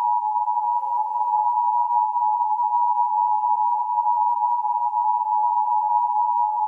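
Emergency Alert System attention signal: two steady tones sounding together in one continuous, unbroken alarm tone.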